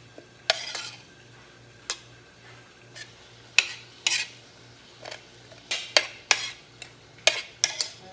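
Utensils clinking against dishes: about a dozen irregular sharp clinks, some with a short ring, over a faint steady low hum.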